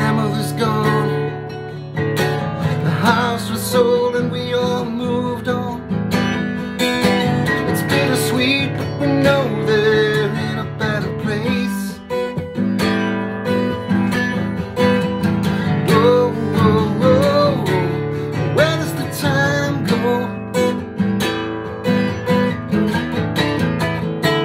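Acoustic guitar strummed steadily, with a voice singing a melody over much of it.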